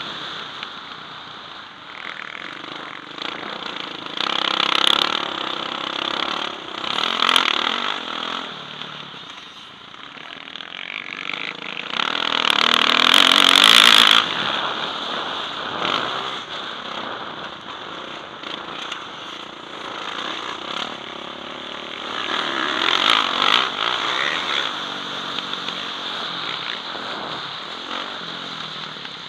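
Motocross bike engine revving up and easing off again and again as it is ridden round a dirt track, heard from a helmet camera. The longest, loudest surge comes a little before the middle.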